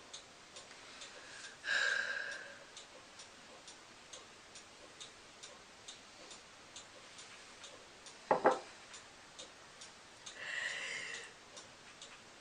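A clock ticking steadily about twice a second. A woman breathes out heavily twice, about two seconds in and again near the end, and there is one short sharp sound about eight seconds in.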